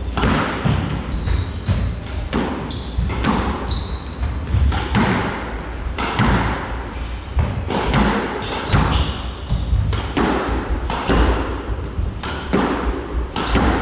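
Squash rally: the ball smacks off racquets and the court walls about once a second, with a few short high shoe squeaks on the hardwood floor in the first seconds.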